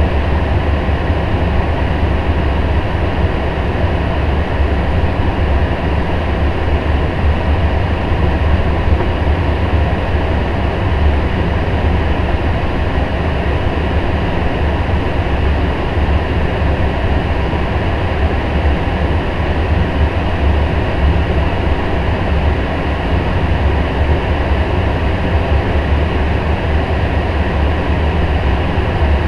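Steady in-flight flight-deck noise of a Boeing 777-300ER on approach: an even rush of air with a strong low rumble, unchanging throughout.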